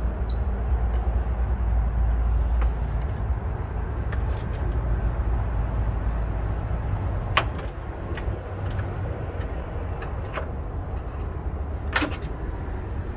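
A low steady rumble, louder in the first half, with a few sharp separate clicks and taps of a hand tool on the radiator's metal mounting bracket from about seven seconds in.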